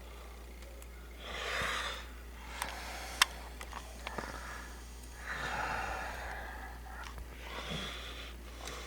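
A person breathing close to the microphone: three slow breaths, each a soft swell of hiss about a second long. A single sharp click comes about three seconds in.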